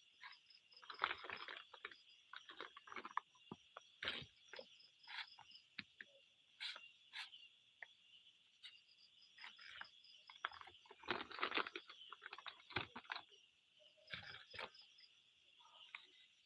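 Crickets trilling steadily at night, with irregular crackling and rustling clicks over the top.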